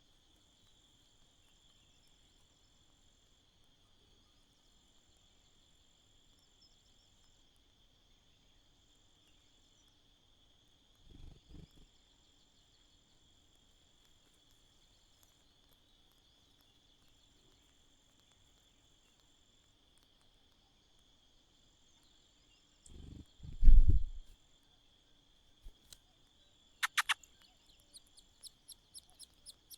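Steady high-pitched insect chirring, as of crickets, throughout. A couple of dull low thumps about eleven seconds in and again around twenty-three seconds, the second the loudest sound. Near the end, a run of short high chirps, a few a second.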